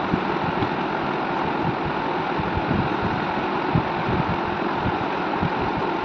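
Steady rushing background noise with irregular low thumps, like moving air buffeting the microphone.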